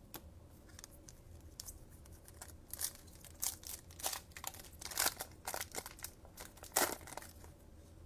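Plastic trading-card packaging crinkling and rustling as football cards are handled, a run of short, sharp crackles that is loudest near the end.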